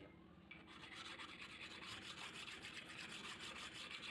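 Sandpaper rubbed in rapid back-and-forth strokes over the iron sole plate of a wooden hand plane, starting about half a second in.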